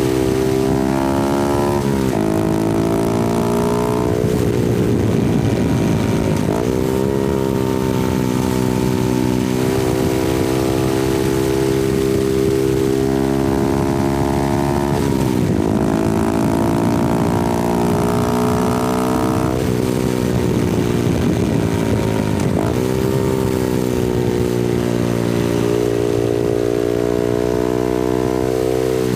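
Honda Grom 125cc single-cylinder engine and exhaust running under way, picked up close by a mounted mic with some wind noise. The engine note holds steady for stretches and steps up and down in pitch several times as gears change, with a few sudden dips and quick swoops in revs.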